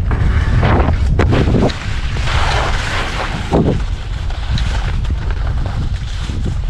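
Wind buffeting the microphone while skiing on one ski, with knocks as the ski rides and leaves a rail early on, then the ski scraping over packed, hard snow.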